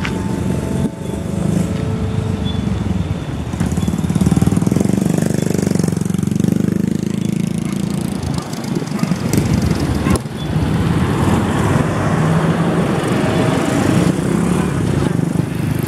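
Diesel locomotive engine running with a steady low rumble, growing louder about four seconds in, with a short knock about ten seconds in.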